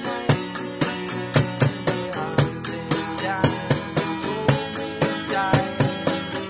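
Acoustic guitar strummed in a steady rhythm, with an improvised drum kit of plastic buckets and metal lids keeping the beat with low thumps and sharp hits.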